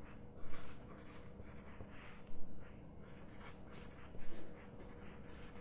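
Felt-tip marker writing on a sheet of paper lying on a desk: a quick run of short scratching strokes, with a few louder ones about half a second, two and a half and four seconds in.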